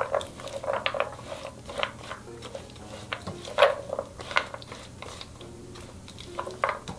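A wooden spatula stirring glazed sweet pumpkin chunks and nuts in a nonstick pan: irregular knocks and scrapes of the spatula and food against the pan, the loudest about halfway through.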